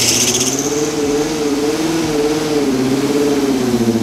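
Light truck's engine held at high revs through a burnout, its pitch wavering gently up and down while the rear tyre spins on concrete.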